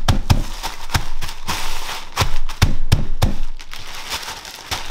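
Sour cream and onion potato chips being crushed by hand inside a sealed plastic zip-top bag on a countertop: crinkling plastic and crunching chips, with a string of uneven thumps as the palms press and pat the bag down.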